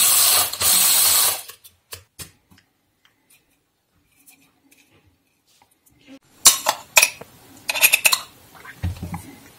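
Electric blade spice grinder grinding peppercorns, running in two short pulses that stop about a second and a half in. Later come clicks of the grinder's bowl and lid and a metal spoon scraping out the ground pepper.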